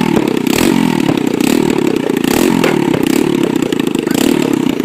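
Small mini-bike engine running loud and being revved, its pitch rising and falling several times.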